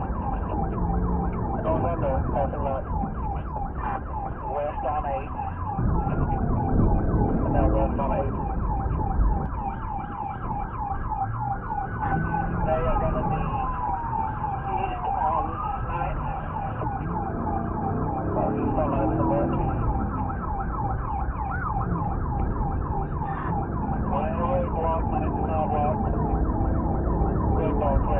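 Police siren sounding continuously in a fast-cycling yelp, with a slower rising-and-falling wail sweeping through it in the middle, over the steady rumble of a car's engine and road noise.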